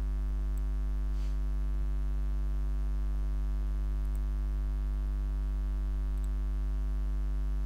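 Steady electrical mains hum, a low 50 Hz buzz with a stack of overtones above it, with a few faint clicks.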